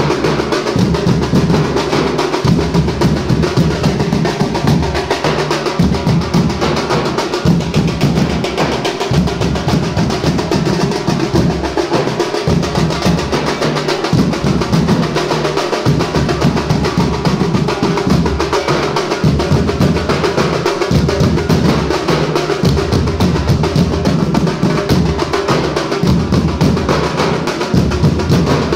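A Nashik dhol troupe drumming together: many large barrel-shaped dhols beaten with sticks, along with smaller stick-played drums, in a dense, unbroken rhythm.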